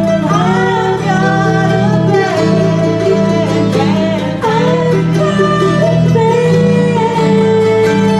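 Acoustic string band playing a country-bluegrass song live: upright bass plucking a steady line under acoustic guitar and mandolin, with women singing.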